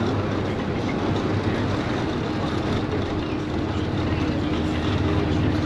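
Tour coach driving along a road, heard from inside the cabin: a steady engine drone with a constant low hum under an even wash of road and tyre noise.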